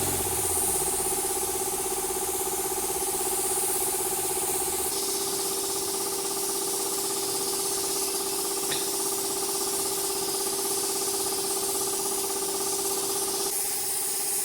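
A motor running with a steady hum; the hum shifts to a slightly different pitch about five seconds in and changes again near the end.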